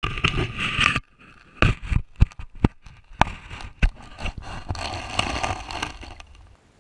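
Water splashing around a camera at a lake's surface, then a string of sharp knocks and clicks as it goes under, and a stretch of water noise that stops abruptly near the end.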